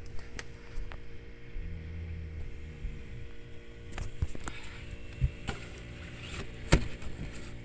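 Refrigerator humming steadily, with a few sharp clicks and knocks of handling around its open door.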